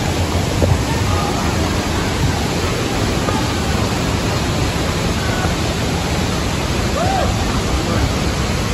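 Steady rush of water pouring over a waterfall's cascades into the river, an even hiss with no let-up.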